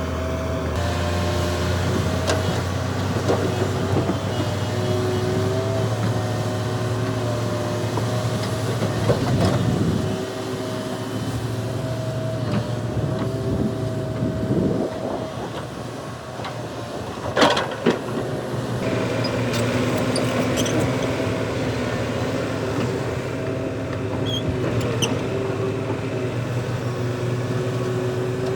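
Volvo EC480DL hydraulic excavator at work: its diesel engine runs steadily under a steady hydraulic whine, with scattered knocks and clanks and one loud clunk about seventeen seconds in.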